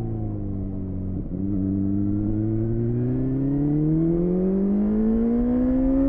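BMW S1000RR inline-four engine through an Akrapovic Shorty slip-on exhaust, heard from the saddle while riding. The note dips sharply about a second in, then rises steadily in pitch and gets louder as the bike accelerates.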